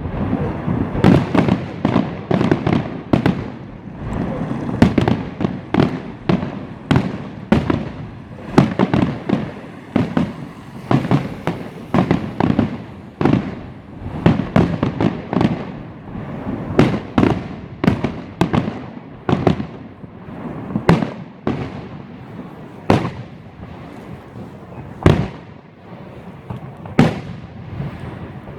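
New Year's fireworks going off in a continuous barrage: sharp bangs of bursting shells, one or two a second, over a steady rumble of more distant explosions.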